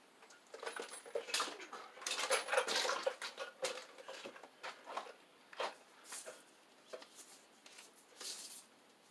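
Electrical cable being handled and pulled through holes in wooden floor joists: scattered scrapes, rustles and clicks, busiest around two to three seconds in.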